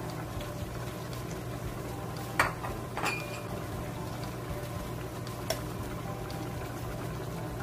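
Spicy braised dried pollock bubbling as it simmers in its sauce in a frying pan, over a steady low hum. A metal spoon clinks against the pan or bowl three times, the second clink ringing briefly, as more seasoning sauce is added.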